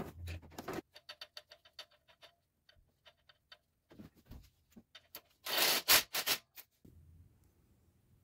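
Metal hand tools at work on an engine's belt tensor mounting: a quick run of clicks, about seven a second, then scattered clicks and a few louder scrapes a little past halfway.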